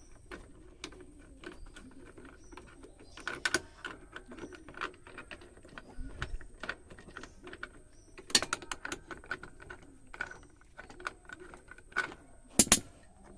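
Hand tools loosening the mounting nuts of a Bajaj Pulsar's footrest holder: a run of light metallic clicks and ticks, with a few louder clanks of tool on metal, the loudest a double clank near the end.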